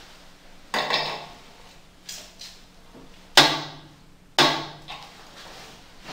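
A wrench clanking against the nut and stainless steel lid of an autoclave while the exhaust valve mounting nut is retightened: three sharp metallic knocks, each ringing briefly, with a few softer taps between. The middle knock, about three and a half seconds in, is the loudest.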